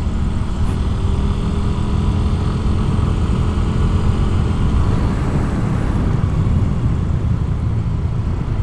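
Yamaha Avantiz 125cc fuel-injected scooter engine running on the move, its note easing down slightly in pitch over the first few seconds, under heavy wind rumble on the microphone.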